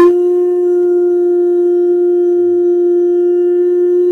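Conch trumpet (atecocolli) blown in one long, steady blast on a single note, starting abruptly.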